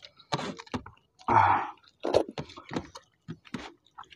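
Two people eating rice and vegetable curry with their hands: wet chewing and lip smacks in short, irregular clicks, with one louder mouth sound about a second and a half in.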